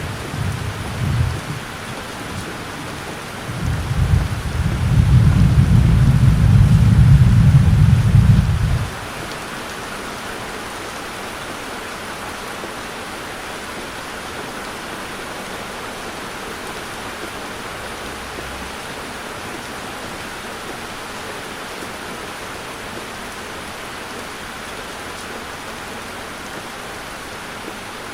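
Heavy rain falling on a car, a steady hiss. From about four seconds in, a loud low rumble rises over it and cuts off suddenly about nine seconds in.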